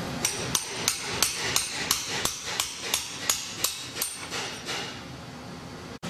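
Hammer blows on metal, a steady run of about a dozen strikes at roughly three a second, each with a short metallic ring, growing weaker and stopping near the end. Hand-tool hammering on a Securam safe lock to break it apart.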